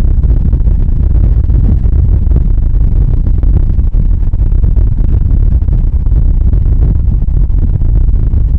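Steady low road and engine rumble from a car driving at speed, heard inside the cabin.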